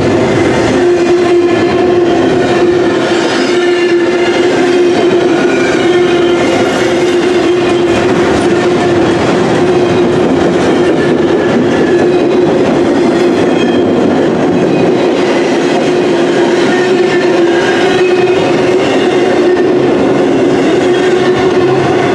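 CSX double-stack intermodal container train rolling past close by: loud, steady noise of the well cars' wheels on the rails, with a steady tone running under it.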